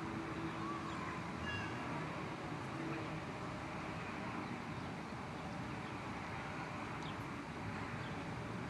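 Steady outdoor background noise under a storm sky, with a few faint short high calls about a second in.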